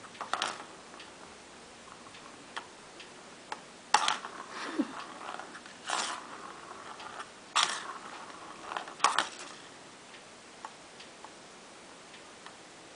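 A plastic ball rolling around the track of a cat's circular plastic ball-track toy as the cat bats it, with about five sharp clattering knocks of ball and paw against the plastic and a rolling rattle between them.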